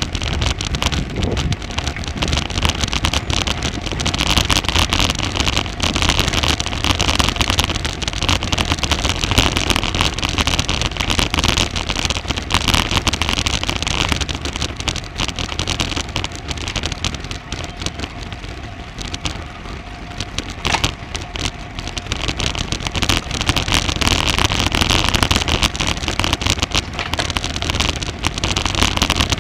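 Wind rushing over a Garmin VIRB action camera's microphone on a moving bicycle: a steady, loud noise that swells and eases every several seconds.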